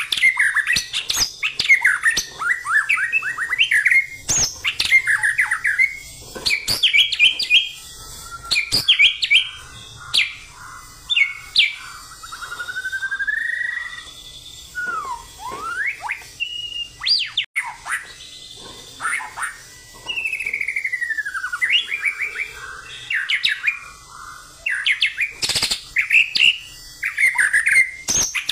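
White-rumped shama (murai batu) singing an energetic, aggressive "fighting-style" song of rapid, varied phrases: sharp whistles, quick trills and slurred rising and falling notes, in bursts with short pauses between them.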